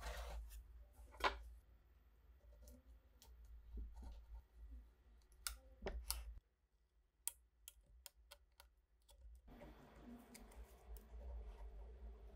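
Sharp clicks and taps of a steel scraper blade being worked into the split edge of old wooden panels, prying the layers apart. From about ten seconds in, a softer continuous scratching of the blade against the wood.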